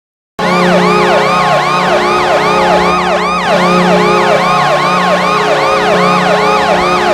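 Arena goal horn for a hockey goal bursting on suddenly about half a second in: a steady low horn tone that pulses on and off under a siren yelping rapidly up and down about three times a second.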